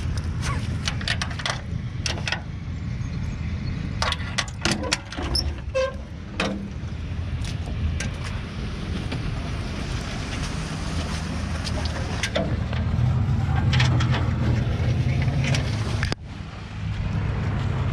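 Vehicle driving: a steady low engine and road drone heard from inside the cab, with scattered clicks and rattles. The drone grows louder for a few seconds near the end.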